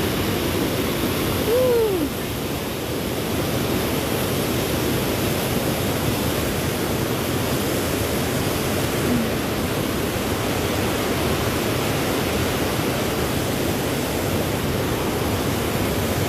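River rapids running over rocky ledges: a steady rush of white water. A short falling tone cuts in briefly about two seconds in.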